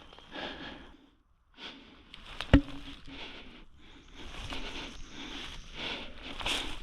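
Rustling and crunching of footsteps through forest undergrowth, in uneven bursts, with one sharp crack about two and a half seconds in.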